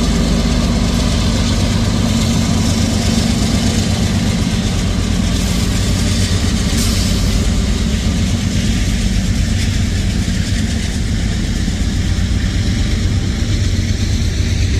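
Norfolk Southern freight train passing close by: the diesel locomotives' engines drone as the last units go past, giving way after about nine seconds to the steady rolling rumble of freight cars on the rails.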